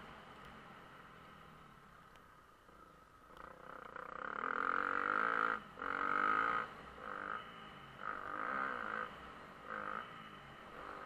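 Motocross bike engine under load, quieter at first, then revving up about three seconds in, cutting off abruptly for a moment near the middle and coming back in several short bursts of throttle.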